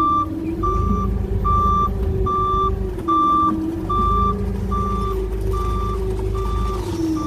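Forklift's reversing alarm beeping steadily, a little more than one beep a second, over its engine running, the engine's pitch rising and falling as it revs.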